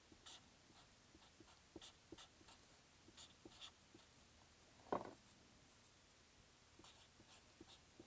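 Faint scratching of a pen writing on a paper tanzaku wish strip, in short strokes, with a single louder knock about five seconds in.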